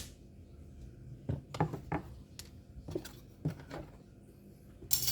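A string of light, irregular clicks and taps as the open Dell Latitude 3580 laptop and small parts are handled, with a sharper click at the very start and another near the end.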